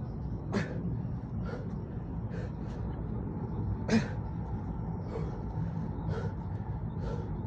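A man breathing hard from the exertion of a long push-up set: short, forceful exhales or gasps about once a second, the loudest about four seconds in. A steady low rumble lies underneath.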